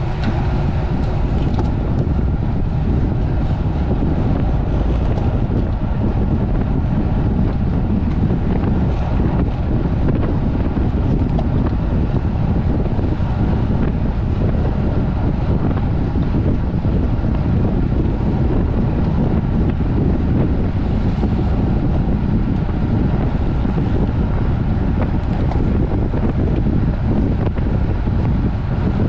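Steady wind buffeting the microphone of a camera carried on a road bicycle ridden at speed, a low, even rush with no break.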